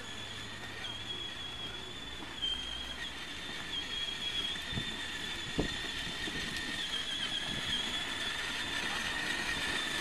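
Electric drive motors of a child's battery-powered ride-on toy car whining steadily as it drives, the high whine wavering slightly in pitch. A couple of low knocks come about five seconds in.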